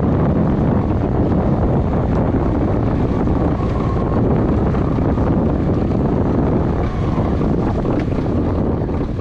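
Heavy wind buffeting the microphone, with rushing water underneath, aboard a sailing catamaran under way.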